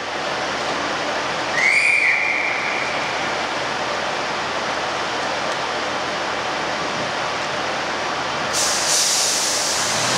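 Northern Rail Class 142 Pacer diesel multiple unit standing at the platform with its diesel engines idling, a steady rushing noise throughout. About two seconds in, a single high whistle sounds and fades within about a second; near the end a loud hiss of released air starts, the train readying to depart.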